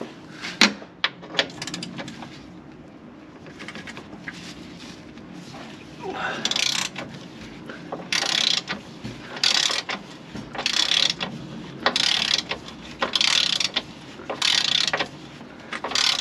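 Hand socket ratchet being worked back and forth to undo a 13 mm bolt, its pawl clicking in a short run on each back-swing, about once every second and a half from about six seconds in. A few sharp clicks come first as the socket is set on the fastener.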